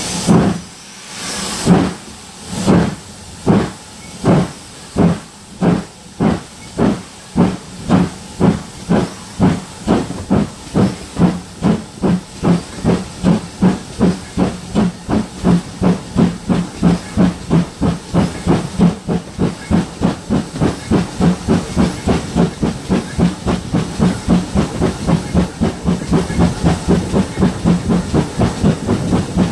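GWR 56xx class 0-6-2 tank locomotive's exhaust beats, heard from the carriage behind, quickening steadily from slow chuffs to about three a second as the engine accelerates. A burst of steam hiss sounds in the first couple of seconds.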